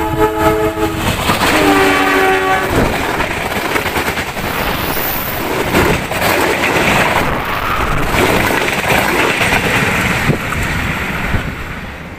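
Train horn sounding two short blasts, each a chord of several notes, the second at a different pitch. Then the train runs on with a loud rumble and wheels clacking over the rails, dying away near the end.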